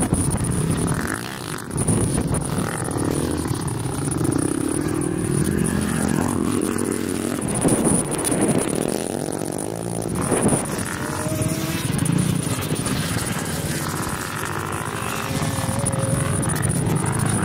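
Off-road vehicle engines running and revving up and down repeatedly.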